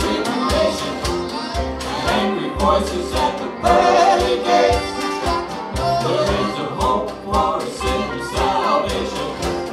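Live band playing a country-bluegrass song: voices singing over banjo, mandolin and electric guitar, with a steady percussive beat.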